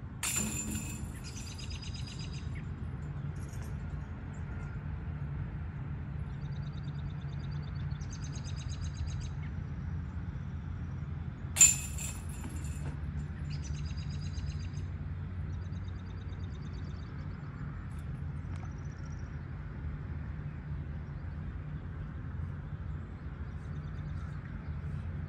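Two putts hitting a Dynamic Discs basket's galvanized chains: a sharp metal clash at the very start and a louder one about halfway through, each followed by a second or two of chains jingling. Birds chirp faintly in between over a steady low hum.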